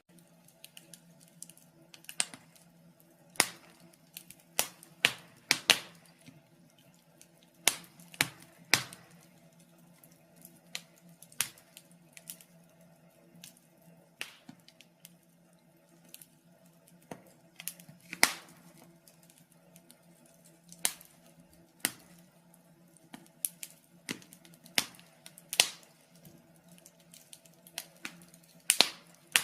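Wood fire in a fireplace crackling, with irregular sharp pops coming every second or two over a faint steady low hum.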